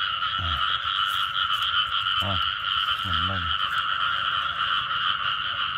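A chorus of frogs calling: a dense, steady high-pitched drone of many callers, with a few short, low croaks about half a second, two seconds and three seconds in.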